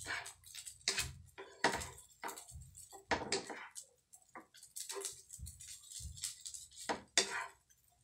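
Wooden spatula stirring and turning fried rice in a non-stick frying pan: a series of irregular scrapes and taps, about one or two a second.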